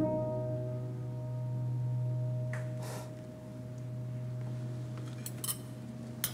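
Quiet film score: held ringing tones over a low steady drone. A few light clinks of cutlery on plates sound about halfway through and again near the end.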